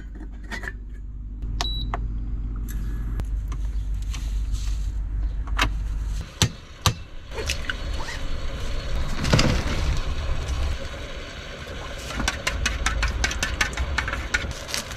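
A steady low hum that cuts off about six seconds in, followed by a couple of sharp knocks. Near the end, chopsticks click rapidly against a steel bowl as eggs are beaten.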